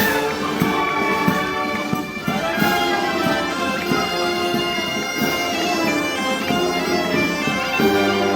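Festival band music: a loud, nasal reed-wind melody over repeated drum strokes, with lower brass coming in near the end.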